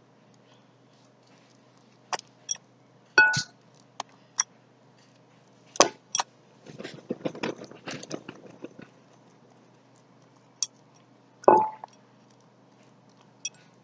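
Small glass bottles and containers clinking and tapping, about a dozen separate clinks, a few of them ringing briefly. From about 6.5 to 9 seconds in, a stretch of sticky, crackly squishing from slime being mixed.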